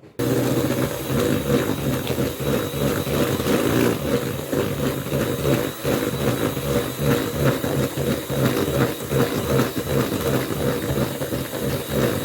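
An electric kitchen appliance motor switched on with a sudden start, running loud and steady with a fluttering hum, then winding down near the end.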